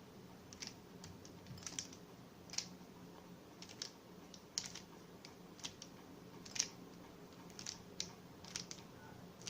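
Plastic Rubik's Cube layers clicking as they are turned by hand, in quick irregular clusters of sharp clicks: the last-layer corner-twisting algorithm being repeated.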